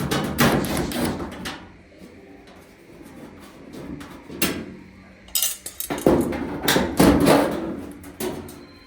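Irregular clattering and knocking as the dryer's sheet-metal back panel and its fastenings are handled during removal: a burst of clatter at the start, a sharp click about halfway, and a longer run of clatter near the end.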